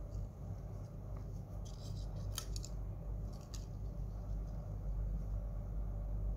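Cloth rustling and a few crisp clicks in the middle as a pair of toddler leggings is handled and its elastic waistband turned inside out, over a low steady hum.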